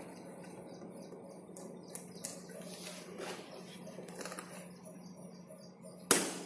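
Hands handling a cardboard toy box with a plastic window: scattered rustling, scraping and crinkling of card and plastic, with one sharp knock about six seconds in.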